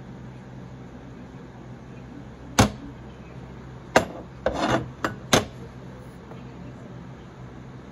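Hands handling hard objects: four sharp clicks, with a short scraping rub between the second and third, over a steady low hum.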